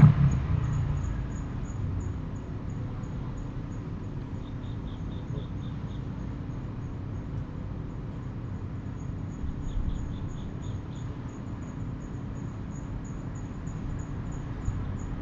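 Muffled low rumbling and thudding heard through the walls of a house, which the recordist logs as someone climbing stairs and a shoji screen sliding, with faint high ticking over it.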